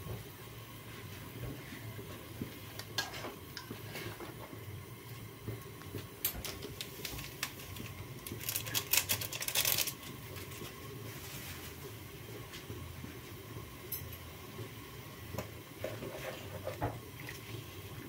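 Metal spoon and utensils clinking and knocking against an aluminium cooking pot of chicken pieces in water, over a steady low hum. A dense run of clattering comes about halfway through.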